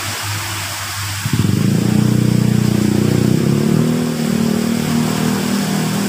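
An engine comes in abruptly about a second in: a loud, low pulsing drone that shifts up slightly in pitch a few seconds later. Under it is the steady rush of falling water, and a low steady hum before the engine begins.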